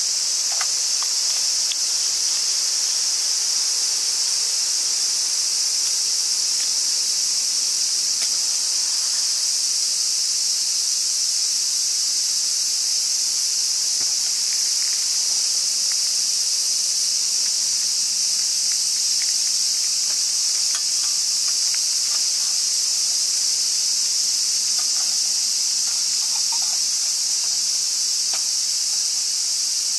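A steady, high-pitched insect chorus shrilling without a break, with a few faint ticks and taps from small objects being handled over it.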